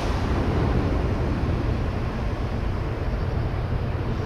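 Low, steady rumble of a large ro-ro ferry's diesel engines as the ship approaches under way.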